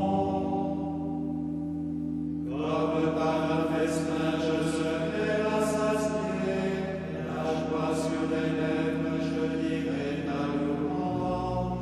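Background music of slow chanting voices over long held low notes, with the voices coming in more fully about two and a half seconds in.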